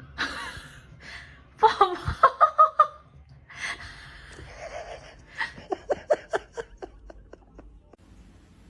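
A person laughing in two bouts of short, rhythmic ha-ha pulses: the first starts about one and a half seconds in, the second about five and a half seconds in and dies away.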